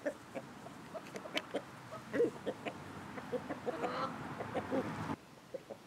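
Chickens clucking: a run of short, separate clucks, a few of them arching up and down in pitch. A steady background noise under them drops away suddenly about five seconds in.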